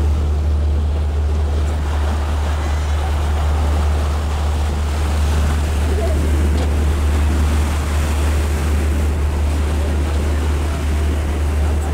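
Passenger lake boat under way: a steady low engine hum with water rushing and splashing along the hull.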